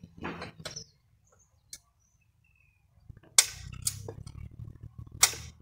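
A few sharp clacks and knocks, the loudest from about three and a half seconds in, over a low rumble, with a short rustling scrape near the start.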